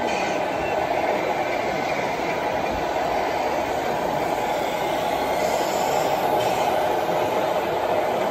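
Radio-controlled scale model trucks running across a carpeted floor: a steady mechanical noise that carries on without a break.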